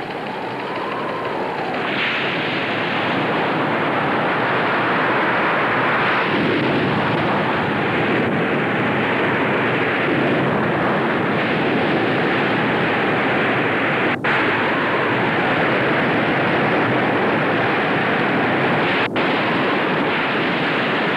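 Storm wind sound effect: a dense, steady rush of hurricane wind with a faint wavering howl, cut twice by a split-second drop-out.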